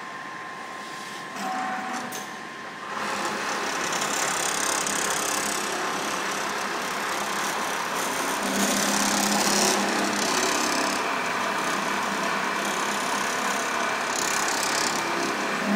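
An automatic computer-controlled pattern sewing machine starts up about three seconds in and then runs steadily, sewing a programmed pattern as its needle drive and template carriage move.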